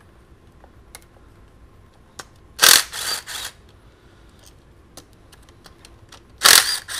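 Cordless power ratchet spinning out the fuel-rail bolts of a MINI Cooper S engine: two short whirring runs of about a second each, one a little before halfway and one near the end, with light clicks of metal and plastic handling between.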